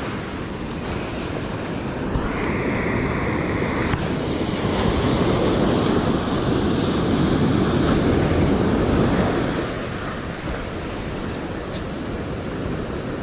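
Ocean surf breaking and washing up the beach, with wind buffeting the microphone; the wash swells louder for a few seconds in the middle.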